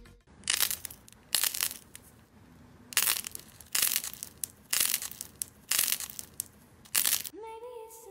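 Hands squeezing a crunchy green-and-white slime, giving about seven sharp crackling crunches roughly a second apart.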